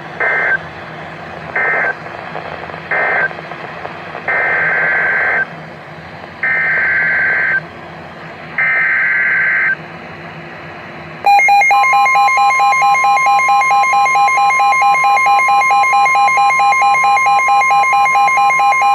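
Emergency Alert System digital data bursts: three short screeching bursts (the end-of-message code), then three longer bursts of about a second each (the header of the next alert), each a fast two-pitch warble. About eleven seconds in, a loud long alert tone begins: a steady high tone with a pulsing lower tone over it.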